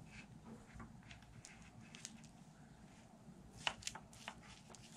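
Faint handling noises of a coil spring being fitted back onto a scooter's suspension bolt: soft rustles and small scattered clicks, with a few sharper clicks a little past halfway.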